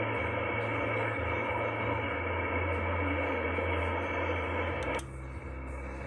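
Amateur radio receiver hiss and static from its speaker, muffled as through a narrow voice filter, with faint steady whistling tones in it and a low hum beneath. About five seconds in the hiss drops abruptly quieter and thinner.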